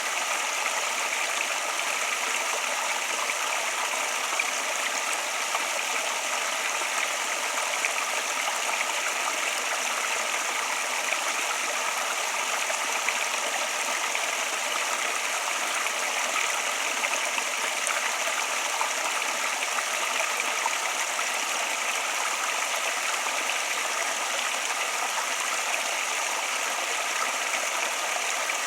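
Flowing water running steadily, an even rush with no breaks or changes.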